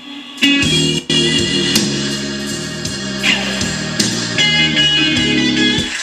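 Guitar music from a portable player, played through the radio's auxiliary input and speaker, cutting in about half a second in and replacing the talk-radio broadcast: the radio has switched to the aux source.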